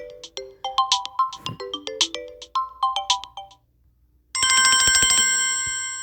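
Samsung Galaxy A21s ringtones. A quick melodic tune of short chiming notes ends about three and a half seconds in. After a brief pause a different ringtone starts, a held, shimmering ring with rapid pulsing that slowly fades.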